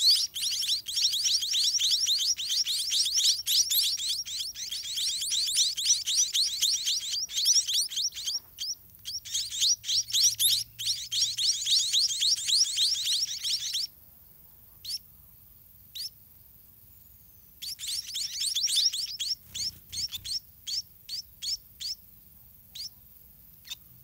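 White-rumped munia chicks begging in the nest: a rapid, unbroken stream of high, thin chirps that cuts off suddenly about 14 s in. After a couple of lone chirps it returns briefly, then breaks up into scattered single chirps near the end.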